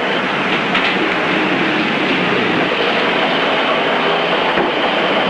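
Steady, dense clatter of several roll-fed automatic typewriters typing letters together, with no pauses.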